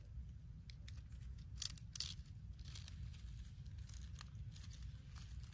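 Dry leaf litter rustling and crackling, stirred by a hand and a small eastern kingsnake crawling off through it. The rustles are loudest about two seconds in, over a steady low rumble.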